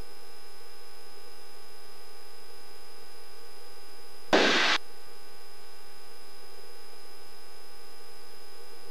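Steady hiss and electrical hum of a Cessna 172's intercom and radio audio feed in flight, with several fixed tones. About four and a half seconds in, a half-second burst of radio static breaks in.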